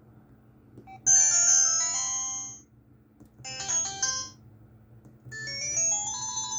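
Huawei ETS688 phone playing its built-in electronic alert tones: three short melodies, one after another, each lasting a second or two with a short gap between.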